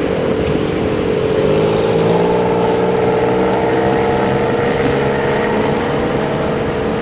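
Doctor Yellow 923-series Shinkansen inspection train moving slowly, a loud steady machine hum with several held tones, a higher tone rising in about a second and a half in.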